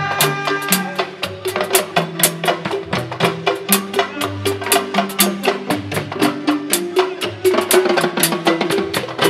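Instrumental band music: fast, dense drum strokes, several a second, over a bass line that moves in short notes.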